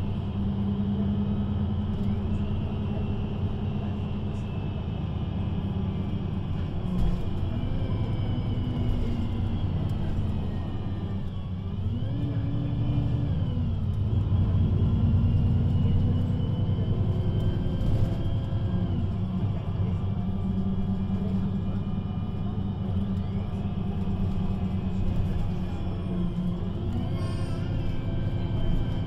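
Diesel engine and Voith automatic gearbox of a VDL Citea LLE 120 city bus driving, the engine note rising and falling several times as it pulls, shifts and eases off. A thin high whine slides up and down above it.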